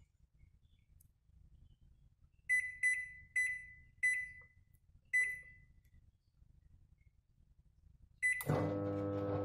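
Microwave oven keypad beeping at each button press: five short, high beeps spread over a few seconds, then one more near the end. Right after the last beep the oven starts running with a steady hum.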